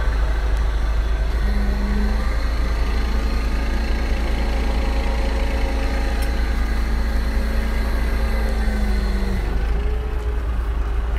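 Truck engine idling, a steady low rumble, with a higher steady hum over it from about a second and a half in until near the end.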